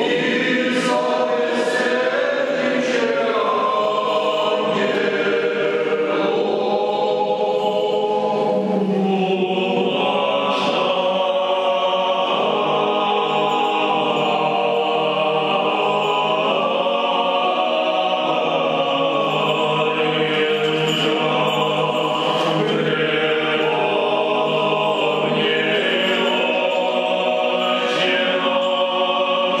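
Unaccompanied voices singing Orthodox liturgical chant in several parts, sustained and slow-moving.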